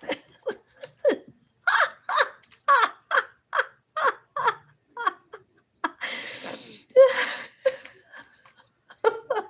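A person laughing: a run of short rhythmic ha-ha bursts, about three a second, then breathy laughs near the end.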